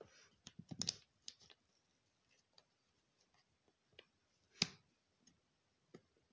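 Scattered light clicks and taps from hands handling something at close range: a quick cluster in the first second, then a few isolated clicks, with the loudest single tap a little past halfway.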